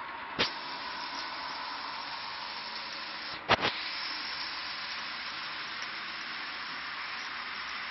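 TT-scale model trains running on the layout make a steady, hiss-like whir. Two sharp clicks cut through it, one about half a second in and a quick double click about three and a half seconds in.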